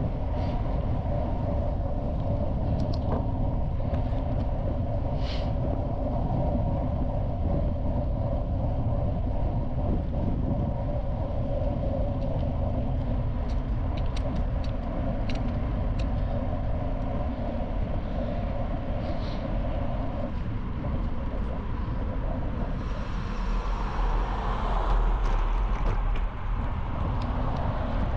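Bicycle riding on a gravel path: steady tyre noise with low wind rumble on the microphone and scattered small clicks. The rumble grows louder and rougher near the end.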